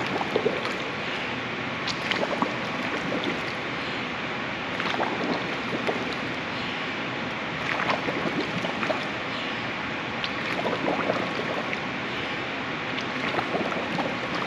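Pool water splashing and sloshing as a swimmer bobs, dunking her head under and coming back up for air in a steady rhythm; each surfacing brings a short cluster of splashes, about every two to three seconds, over a constant wash of water noise.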